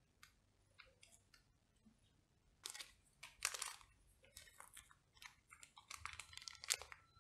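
Rustling and crinkling of model-kit decal sheets and their plastic packaging being handled, in irregular bursts with small clicks, loudest about three seconds in and again near the end.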